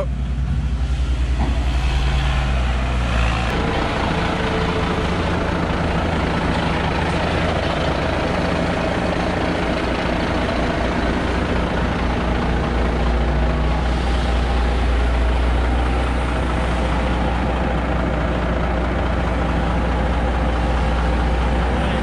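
Heavy diesel truck engine running steadily with a deep, even drone; its note changes about three and a half seconds in.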